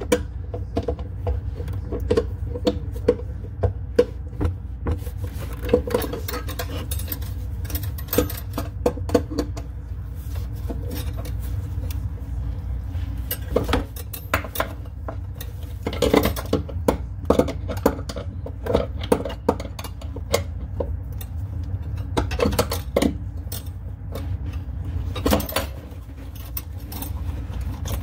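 Scattered clinks, taps and knocks of tools and plumbing parts being handled while working on a bathroom sink's drain and supply lines, over a steady low rumble.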